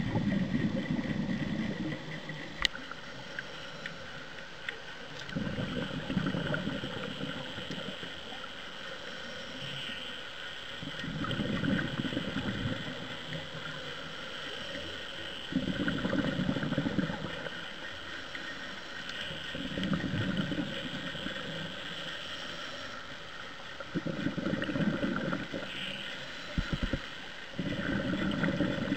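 Scuba diver breathing through a regulator underwater: each exhale is a rush of bubbles lasting a second or two, recurring about every four to five seconds, seven times, with quieter inhales between.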